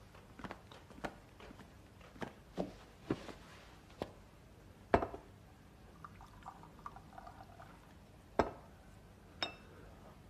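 Quiet household handling sounds: scattered knocks and clinks of cups and cans being picked up and set down, with tea poured from a teapot into a cup for a second or two in the middle. The two sharpest knocks come about five seconds in and near the end.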